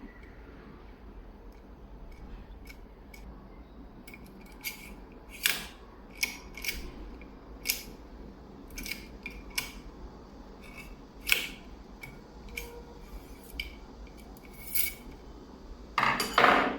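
Irregular small metal clicks and ticks of a lock-decoding tool being turned and worked inside a Kaiba 70040 lock, with a longer, louder scraping rattle near the end.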